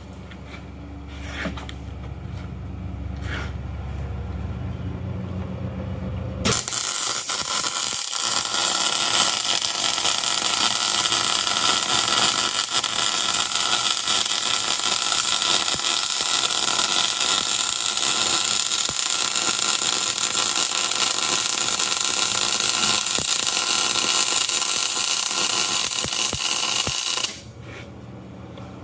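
MIG welder arc running a continuous bead of solid wire onto the nodular cast-iron Dana 60 axle center section: a loud, steady crackle that starts suddenly about six seconds in and cuts off abruptly near the end. Before it, a low steady rumble slowly grows louder.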